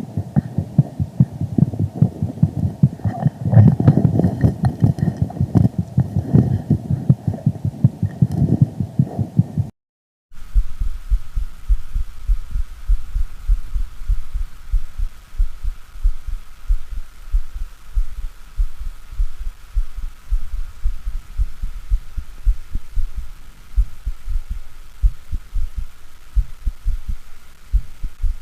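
Recorded pathological heart sounds played back: a rapid run of low thumping beats, then a brief silence about ten seconds in, then a second, deeper and quieter recording of beats with a faint steady hum behind it.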